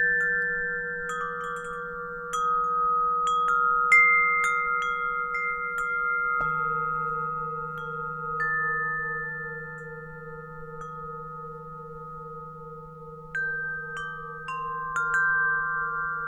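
Gregorian alto wind chimes ringing in scattered strikes, busiest in the first six seconds and again near the end, over the wavering hum of a Tibetan singing bowl, which is struck afresh about six seconds in.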